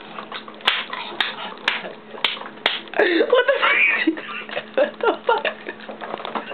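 A series of sharp clicks, about two a second, for the first three seconds. Then a woman's wordless vocal sounds, rising and falling in pitch, as she eats a pancake off a fork.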